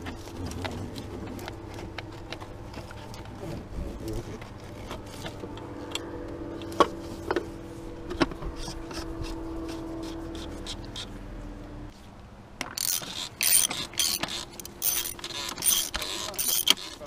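Ratchet wrench clicking in quick runs, starting about two-thirds of the way in, as it turns the plastic oil filter housing cap on a Hyundai i40 1.7 CRDi diesel engine. Before that, faint scattered clicks over a steady low hum.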